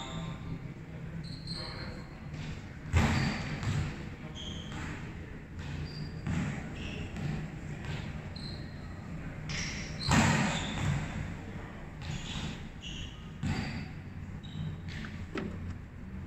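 A volleyball being hit and bouncing: sharp smacks echoing in a large hall, the loudest about three, ten and thirteen seconds in, with lighter hits between.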